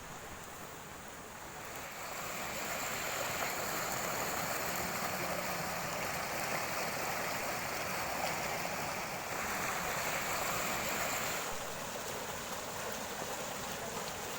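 Water rushing over rocks in a creek waterfall: a steady, even hiss that grows louder about two seconds in.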